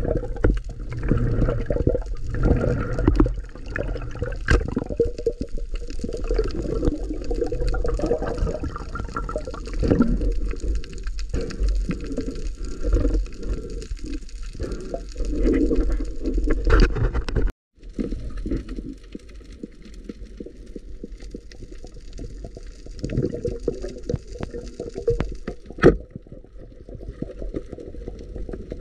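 Water sloshing and gurgling, with scattered small knocks. The sound cuts out for a moment about two thirds of the way through and then goes on a little quieter.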